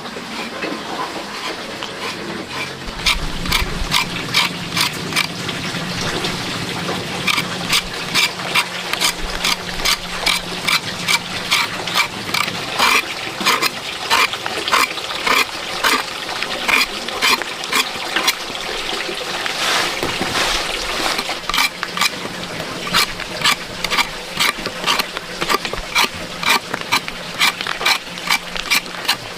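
Chopping: a long run of sharp, evenly spaced strikes, about two or three a second, with a couple of short pauses.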